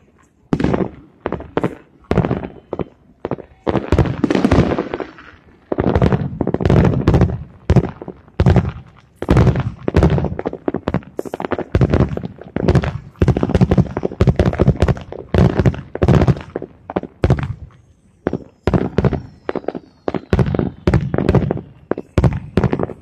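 A distant fireworks show of aerial shells bursting in rapid succession: a dense run of booms and crackling bangs, often overlapping into barrages, each trailing off in a ringing echo.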